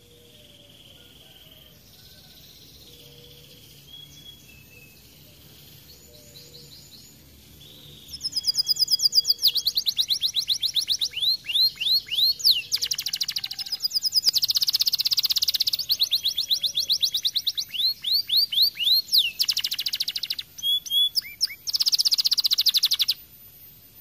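Domestic canary singing. A few faint whistled notes come first, then about a third of the way in it breaks into loud, fast song: rapid trilled rolls of repeated rising and falling notes in phrases with brief gaps. The song stops shortly before the end.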